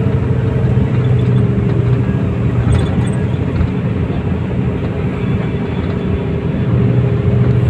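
Inside the cabin of a tour bus cruising on a highway: a steady drone of engine hum mixed with road and wind noise, holding an even pitch at constant speed.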